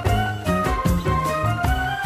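Upbeat theme music with a steady beat, a bouncing bass line and bright melody notes.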